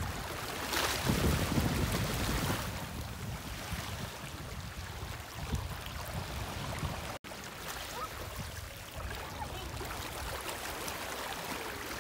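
Sea water washing and lapping, with wind on the microphone; a louder rush of water or wind about a second in. The sound cuts out for an instant a little past halfway.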